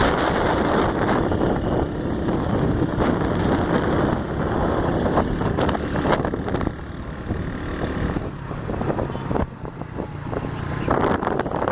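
Rough rushing noise with wind buffeting the microphone, rising and falling unevenly.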